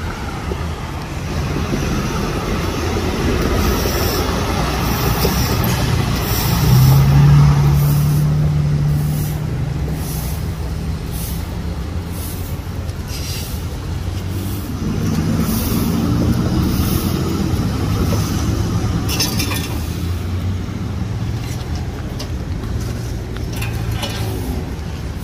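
Heavy truck engine running, with traffic passing on a rain-wet road; the engine drone swells louder about seven seconds in and again about midway, with short hissy swishes in between.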